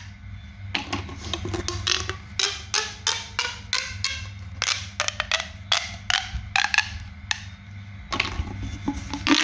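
Sharp, crisp clicks and pops from a homemade pop-sound toy being pressed and handled, coming irregularly at several a second with a short pause near the start and another near the end.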